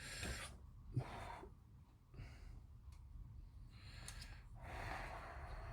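Breathing close to the microphone, several short breaths in a row, with a single sharp click about a second in.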